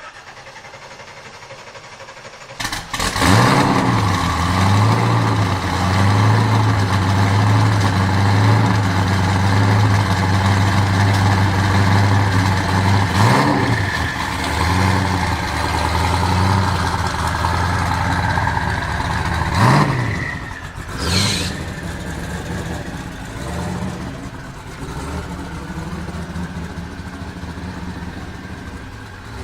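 Twin-turbo V8 of a Mazzanti Evantra supercar firing up about three seconds in and running loudly at a steady idle, blipped twice with short rises and falls in pitch, the second followed by a brief high whistle, then settling to a quieter idle.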